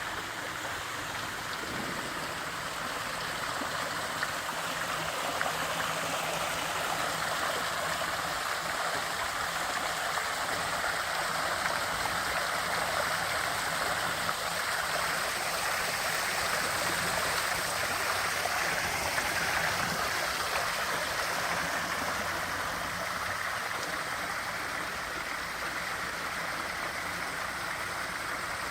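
Water pouring and splashing steadily down a man-made decorative waterfall, a continuous even rush.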